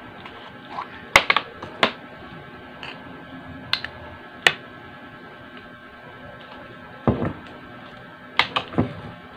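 Small plastic mayonnaise bottle and a metal spoon being handled at a table: a string of sharp clicks and taps as the cap is worked open and mayonnaise is scooped. A heavier knock comes about two-thirds through, and three quick taps follow near the end.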